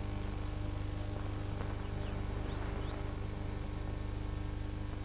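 Steady electrical hum and hiss of an old film soundtrack, with a few faint, short bird chirps about two to three seconds in.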